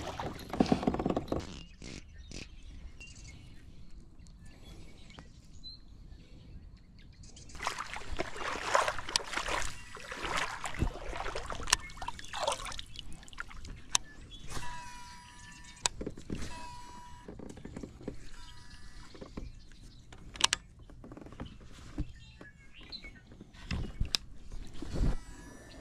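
Sit-on-top kayak being paddled and handled: water splashing and sloshing in the first couple of seconds and again around eight to thirteen seconds in, with scattered sharp knocks of gear against the plastic hull.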